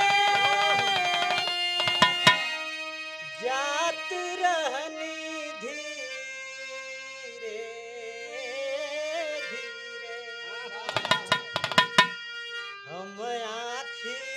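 Folk music on harmonium and dholak: the harmonium holds sustained notes under a wavering, gliding melody, with a couple of sharp dholak strokes about two seconds in and a quick flurry of strokes around eleven seconds.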